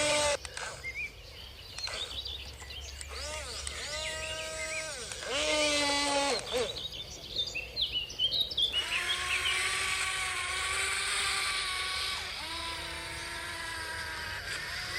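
Small electric motors of a remote-control toy construction vehicle whining, spinning up and down in short runs, then running steadily from about nine seconds in. Birds chirp briefly just before the steady run.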